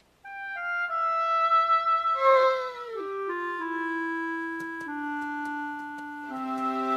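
Background score: a slow woodwind melody of held notes stepping downward, with a brief falling, wavering sound about two seconds in and fuller accompaniment entering near the end.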